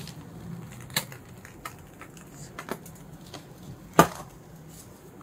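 Light clicks and knocks from hands and utensils at a crepe tray while a crepe is filled with cream and folded, with one sharper knock about four seconds in.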